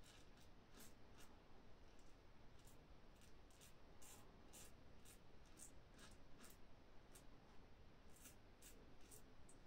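Rockwell 6C safety razor with an Astra Green blade scraping through lathered stubble on the chin and upper lip. It makes faint, short strokes at about two a second, with a couple of brief pauses.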